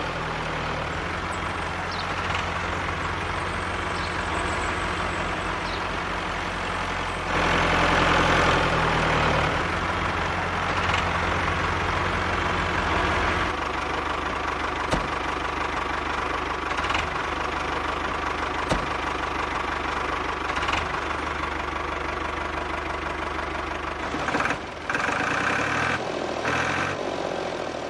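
Tractor engine running steadily. It gets louder about seven seconds in and changes in tone again near the middle.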